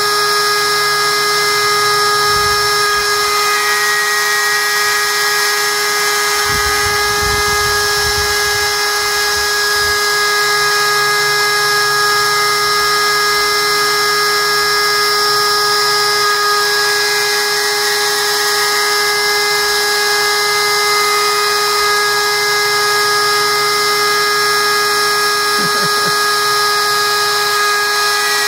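Router spindle on a vertical CNC running at a steady high whine as the bit carves into plywood. The pitch dips briefly a few seconds in and again near the end.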